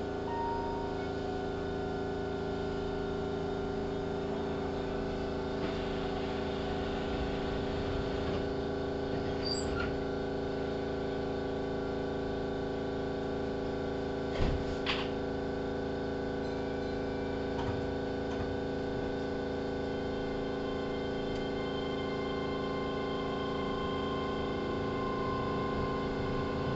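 Steady hum of a Keihan 3000 series electric train's onboard equipment, heard inside the passenger car as it stands with doors closed before departure. A couple of short clicks come about halfway through.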